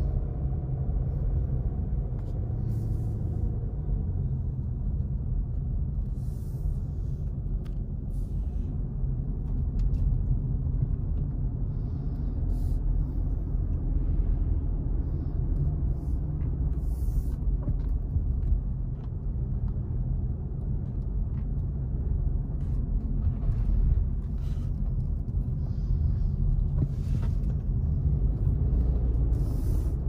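Steady low rumble of a car's engine and tyres on plowed pavement, heard inside the cabin while driving, with scattered brief hissy ticks.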